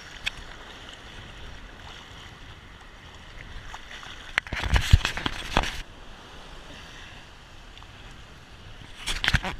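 Choppy lake water sloshing and splashing around a camera held at the surface, with wind. Louder bursts of splashing come about halfway through and again near the end.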